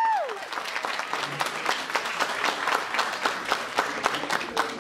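Audience applauding, many hands clapping unevenly.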